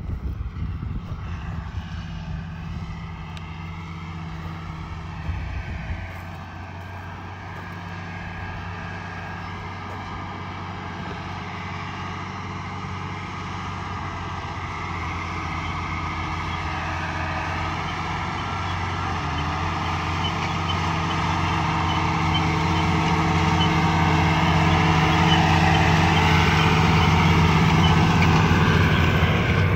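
International Harvester 1486 tractor's turbocharged six-cylinder diesel running steadily under load, pulling a six-row planter. It grows gradually louder through most of the stretch as the tractor comes closer.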